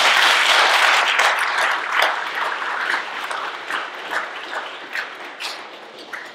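Audience applauding, loudest at the start and dying away over about six seconds.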